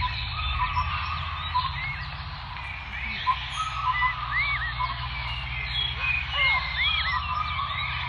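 Chorus of many birds chirping and calling, short arching notes overlapping one another, over a steady low rumble.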